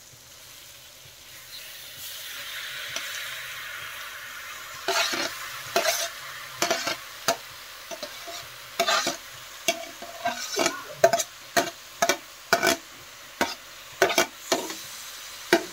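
Boiled macaroni tipped into a hot kadhai of frying tomato masala. A sizzle swells up about a second and a half in. From about five seconds in come a dozen or so sharp knocks and scrapes of a utensil against the plate and the iron pan as the pasta is pushed off.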